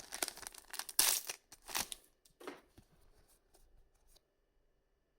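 Trading cards being handled and slid over one another while going through a booster pack: several short rustling swishes, the loudest about a second in, then a few faint ticks.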